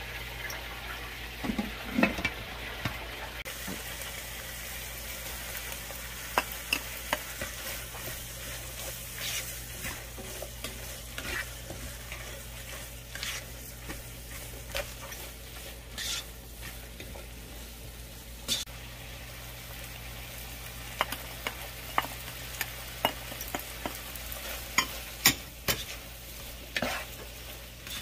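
Shredded cabbage, carrots and red bell pepper sizzling in a frying pan as they are stirred and tossed with a plastic spatula. Frequent short scrapes and taps of the spatula against the pan sound over a steady frying hiss.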